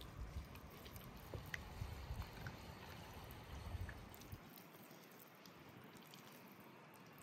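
Faint wet squishing and sticky smacks of hands working a seasoning paste under the raw skin of a whole turkey, with a low rumble that stops about halfway through.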